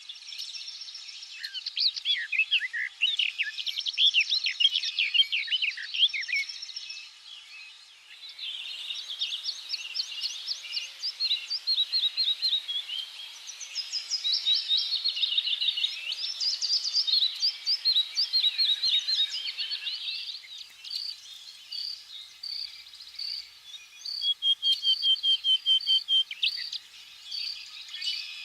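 Several songbirds singing and chirping together in a dense chorus of quick high notes and trills. The backdrop changes abruptly twice, about a third and two thirds of the way through, and near the end one bird repeats a short high note about once a second.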